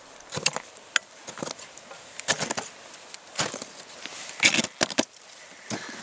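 Footsteps in crampons crunching into firm glacier snow: short, irregular crunches, about one or two a second.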